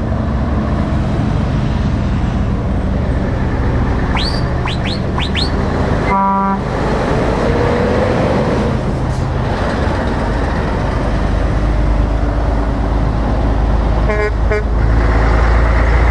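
Heavy trucks passing on the road with a steady engine and tyre rumble, among them a Scania R580 V8 tractor unit. About six seconds in a truck horn gives one short blast, and around fourteen seconds there are two more short horn toots; just before the first horn come four quick rising whistles. Near the end the low rumble grows louder as another truck comes close.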